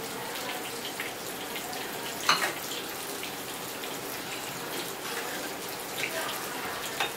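Steel ladle stirring thin chicken curry in a pressure cooker pot: liquid sloshing, with a few clinks of the ladle against the pot, the loudest about two seconds in.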